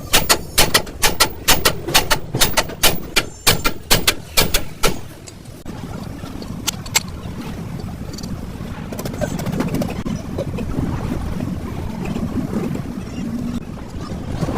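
Rapid hammer blows on steel, about four a second, ringing sharply, for some five seconds, then stopping. A steady low rumble follows.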